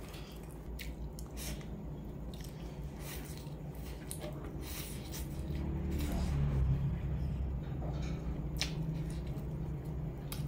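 Close-miked eating of black bean sauce instant noodles: chewing and wet mouth sounds with scattered short clicks and smacks.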